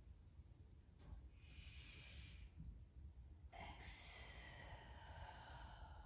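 A woman's slow, controlled qigong breathing: a soft breath in, then a longer audible breath out starting about three and a half seconds in and fading away.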